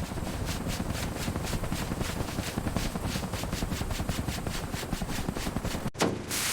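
Power metal cutter running, a steady rapid chatter of about six pulses a second that stops abruptly about six seconds in. A hiss starts just before the end.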